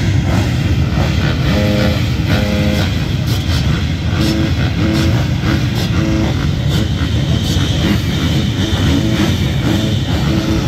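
Rock music with a repeating guitar riff, over the steady rumble of a gate full of motocross bikes idling.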